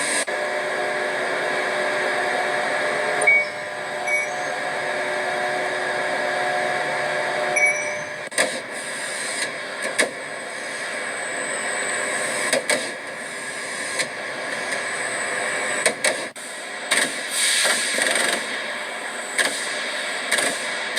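Aircraft assembly-line machinery: a steady mechanical hum with a few held tones, then, from about eight seconds in, a string of sharp metallic clanks and clicks and short hisses.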